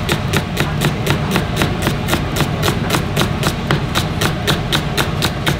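Chef's knife slicing an onion on a cutting board: quick, even knocks of the blade on the board, about five a second.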